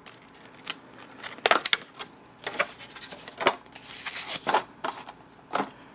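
A trading card deck and its packaging being handled: irregular clicks, crinkles and scrapes, several in quick succession about a second and a half in.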